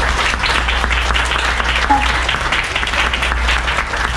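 A crowd applauding, with dense continuous clapping and hands clapping close by.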